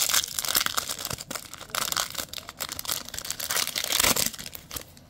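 A trading-card pack wrapper being torn open and crinkled by hand: a dense crackling with a few louder rips, stopping just before the end.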